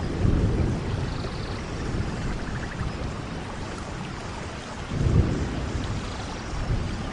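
Thunderstorm: steady rain with two low rolls of thunder, one just after the start and a louder one about five seconds in.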